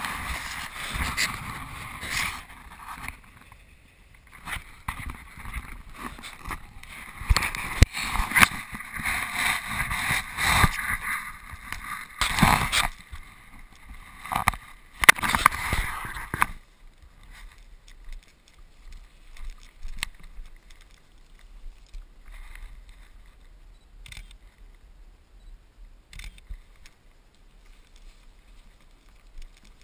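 Snow bike riding over a gravel track: a dense rattle of tyres on stones with many sharp knocks and clicks. A little past halfway it drops to a much quieter ride with only occasional clicks.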